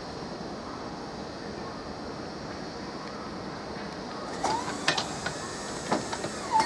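Class 377 Electrostar electric train running slowly over pointwork: a steady rumble, then from about four seconds in a few sharp clacks as the wheels cross the points, with brief squeals from the wheels.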